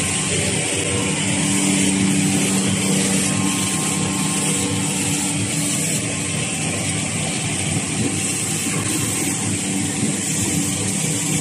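Facial tissue production line machinery running: a steady mechanical hum with a few held tones over a constant hiss, from the line's motors and conveyors.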